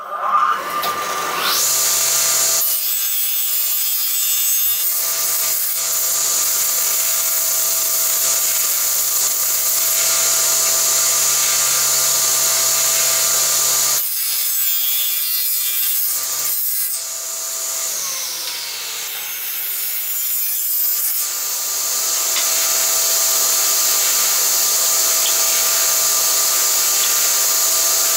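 Electric woodworking machine spinning up with a rising whine, then running steadily while it saws through wood. About two-thirds of the way in its pitch falls as it slows, then it comes back up to speed a few seconds later.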